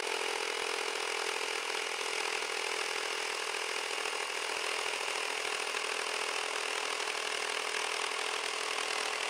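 Hilti SR 4-22 cordless 22-volt one-handed reciprocating saw sawing through a square wooden post, its motor and blade running steadily under load throughout.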